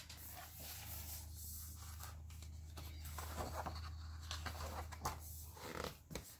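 Hardcover picture book being handled and its pages turned: soft paper rustling and brushing in short scratchy bits, over a low steady hum.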